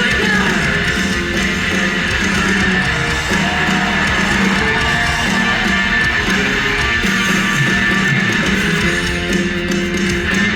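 Live punk rock band playing loud and steady, with distorted electric guitar strumming over bass and drums, recorded from the crowd in a large venue.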